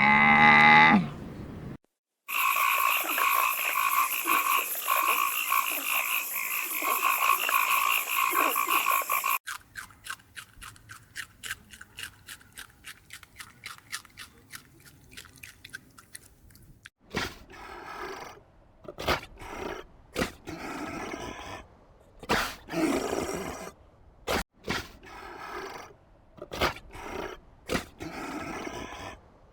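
A run of different animal calls, cut one after another. A short call falls in pitch in the first second. A loud, steady chorus-like sound follows for about seven seconds, then rapid, even clicking calls for several seconds, and finally separate short, loud calls with gaps between them.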